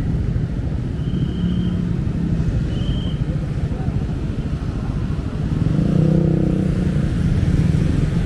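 Motorcycle engine running steadily while riding along a city road, with wind rumble on the microphone; the engine note strengthens about six seconds in. Two short high beeps sound about one and three seconds in.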